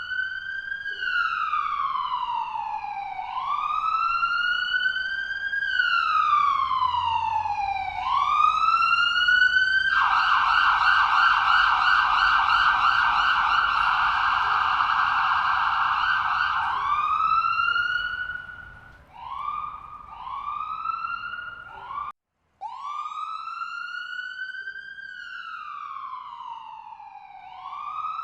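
Electronic ambulance siren cycling through its tones. It starts with a wail that rises quickly and falls slowly, about once every two and a half seconds. About ten seconds in it switches to a rapid yelp for some seven seconds, then gives a few short rising whoops. It cuts out briefly just after twenty seconds and comes back in the wail.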